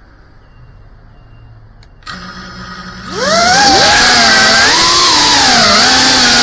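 Geprc Cinelog 35 FPV drone's brushless motors and ducted propellers, heard from its onboard camera: a click just before two seconds in, a low steady hum as the motors idle, then about a second later a spin-up to a loud whine whose pitch wavers with the throttle as the drone lifts off.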